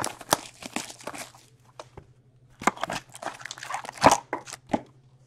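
Plastic shrink wrap torn off a sealed box of trading cards and the cardboard box opened: a run of crinkles, crackles and clicks, loudest about four seconds in.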